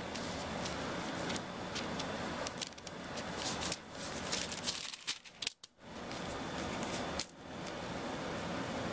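Paper coupon inserts rustling and crinkling as a kitten paws, pounces and scrambles on them, a dense crackle with many small clicks that drops away briefly a little past halfway and again near the end.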